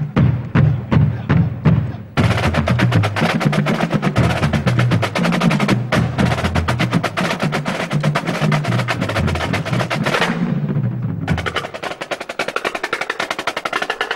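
A marching drum corps playing side drums in unison over bass drums. Steady heavy bass-drum strokes give way about two seconds in to fast, dense side-drum rolls and rudiments. Near the end the side drums drop out briefly, leaving the low drums, before coming back in.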